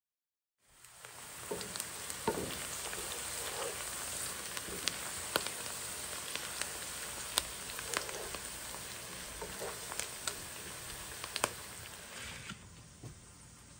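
Sliced onions sizzling in hot oil in a frying pan, a steady hiss with scattered sharp crackling pops. The sizzle starts about a second in and drops off near the end.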